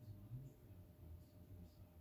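Near silence: room tone with a faint low rumble and a few very faint ticks.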